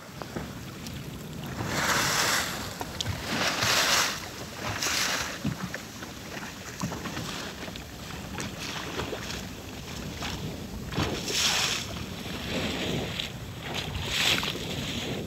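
Sea water rushing and splashing against the hull of a jangada, a sailing fishing raft, under way, with no engine. The hiss swells and fades in surges every few seconds as it meets the waves, loudest in the first few seconds.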